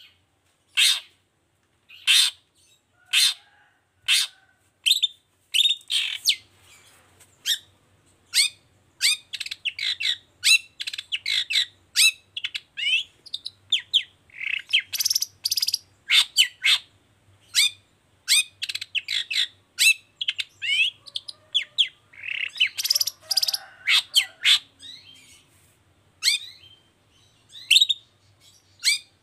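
Long-tailed shrike (cendet) calling: sharp, short "toet toet" notes about a second apart at first, then quicker, busier runs of chirps.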